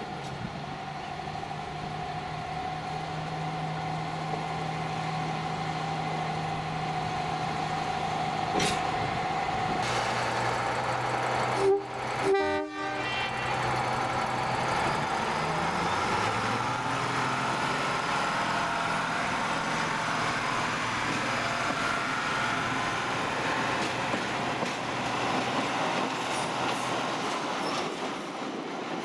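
Redhen diesel railcar's engine running as it moves along the track. About twelve seconds in there is a brief break with clicks, then a louder stretch of engine and rail noise.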